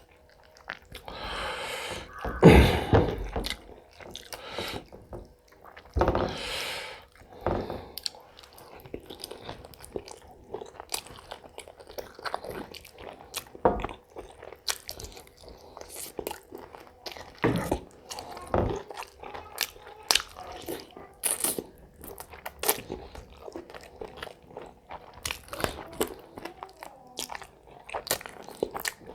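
A person eating close to the microphone: chewing and biting with many short crunches and clicks, and two longer, louder sounds a couple of seconds in and again about six seconds in.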